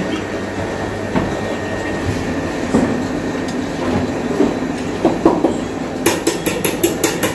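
Steady rumbling noise from a gas burner under a kadhai of gulab jamun frying in oil. A quick run of sharp clicks comes near the end.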